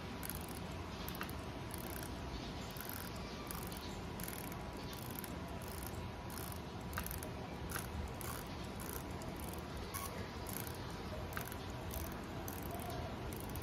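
Rotating bezel of a Seiko 5 Sports SNZF15 dive watch turned by hand, giving short ratcheting clicks at uneven intervals.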